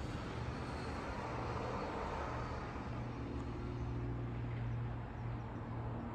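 A steady engine hum under a wash of outdoor noise, dipping slightly about five seconds in.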